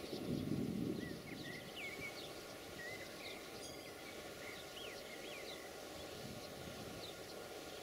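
Small birds chirping and twittering again and again. Under them, the low rumble of a diesel train moving away fades out after about the first second.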